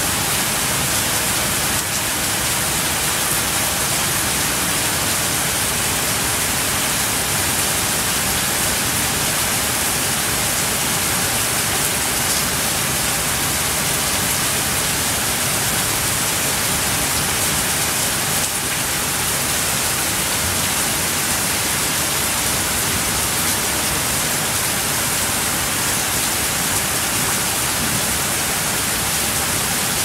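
Heavy tropical rain falling steadily on garden foliage and a wet tiled terrace: an even, unbroken hiss.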